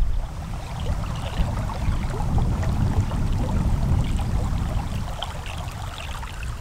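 Shallow river water rippling and trickling over the riverbed, with many small splashing sounds, over a steady low wind rumble on the microphone.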